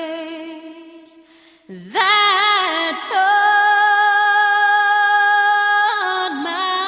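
A woman singing a slow song as the soundtrack, with one long held note from about three to six seconds in.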